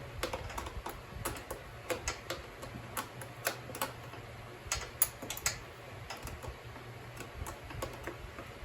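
Ratchet wrench clicking in short, irregular strokes as a nut is worked loose on a dirt bike's swing arm, with a few sharper metal clicks about five seconds in.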